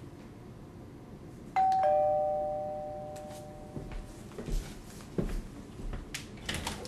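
Two-tone doorbell chime, ding-dong: a higher note then a lower note, ringing out and fading over about two seconds, followed by a few faint clicks and knocks.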